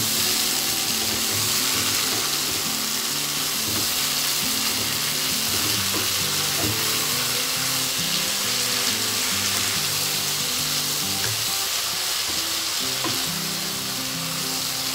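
Bean sprouts and tofu sizzling steadily in hot oil in a nonstick wok, stirred and tossed with a wooden spatula. The sprouts were just added and get only a brief stir-fry so they stay crunchy.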